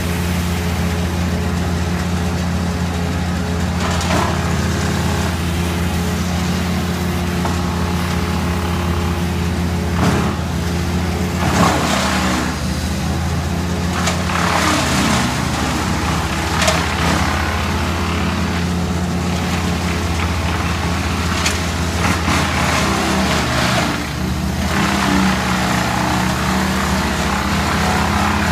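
Wood chipper's engine running steadily at constant speed, with loud rushing bursts every few seconds as branches are fed through and chipped.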